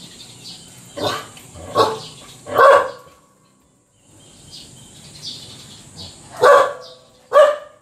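A dog barking: three barks under a second apart, a pause of about three seconds, then two more barks near the end.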